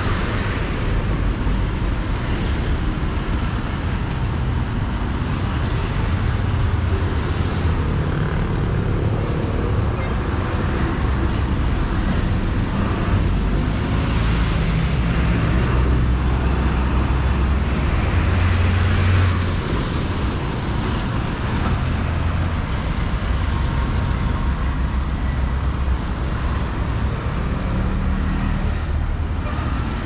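Street traffic: a steady wash of road noise with the low rumble of car engines, one passing vehicle swelling louder about two-thirds of the way through.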